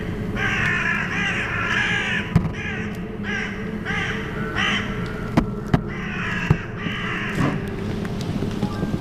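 A flock of crows cawing, many calls in overlapping clusters one after another, with a few sharp clicks and a steady low hum underneath.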